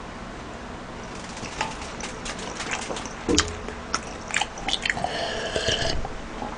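Close-miked eating sounds: a mouthful of rice and beef being chewed, with small wet clicks and smacks. About halfway through, a drink is sipped and swallowed from a plastic tumbler.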